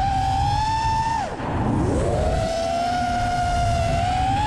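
FPV racing quadcopter's brushless motors whining: the pitch climbs as the throttle is pushed, holds high, drops sharply just over a second in as the throttle is cut, then climbs again and holds high to the end, over a low rumble of air noise.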